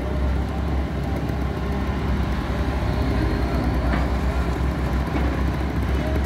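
Diesel engine of a Hyundai long-reach excavator running steadily under load as the boom swings and the bucket dumps mud, a continuous low rumble.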